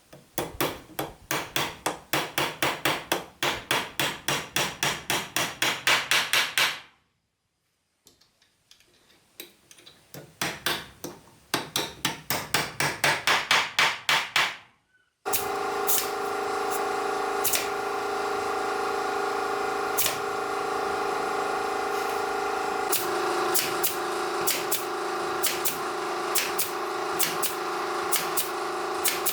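Rapid hammering on wood, about four blows a second, in two runs with a short pause between them. Then, after a sudden cut, an electric power tool's motor runs steadily with scattered clicks.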